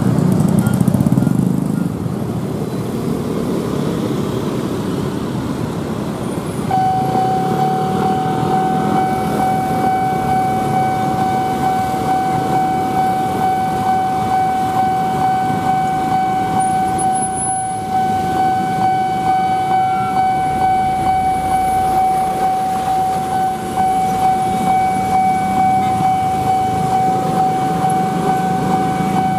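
Railway level-crossing warning sounder switching on about a quarter of the way in: a steady, unbroken electronic tone from the crossing's loudspeaker horn, sounding as the flashers turn red for an approaching commuter train. Passing road traffic runs underneath.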